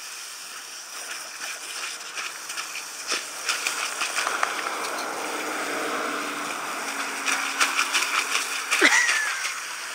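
Water spraying from the end of a garden hose lying on the ground, with splashing and wet clicks as two dogs bite and lap at the jet, getting busier about three seconds in. A short squeak about nine seconds in.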